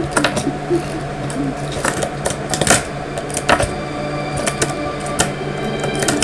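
Fingerboard being flicked, flipped and landed on a tabletop: irregular clicks and clacks of the small deck and wheels striking the surface, with a couple of sharper knocks in the middle, over a low steady hum.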